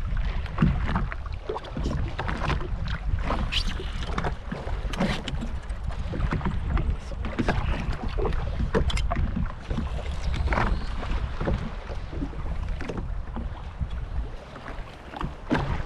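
Wind buffeting the microphone and water slapping against the hull of a jet ski at sea, with irregular knocks and splashes.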